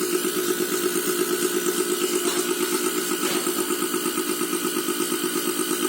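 Homemade DIY air compressor running with a steady, rapidly pulsing hum, pumping air pressure into an aircon's refrigerant lines to about 140–150 PSI for a leak test.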